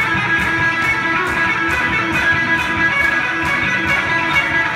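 Two-piece rock band playing live and loud: electric guitar with a drum kit, cymbals hitting on a steady beat about twice a second.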